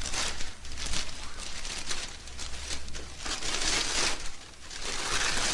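Gift wrapping paper crinkling and tearing as a present is unwrapped by hand, in irregular rustles that are loudest a little after halfway.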